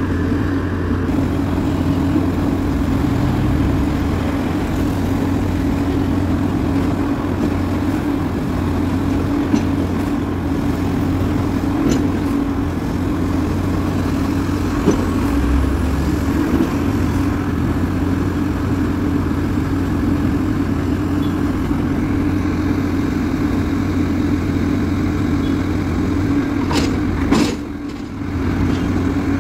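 Diesel engine and hydraulics of a crawler-mounted rotary piling rig running steadily as it drills a pile bore, with a constant low drone. Two sharp knocks come close together near the end.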